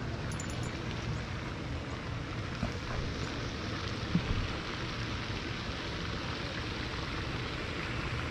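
Wind on the camera microphone: a steady rushing noise with a low, fluttering rumble, and one faint click about four seconds in.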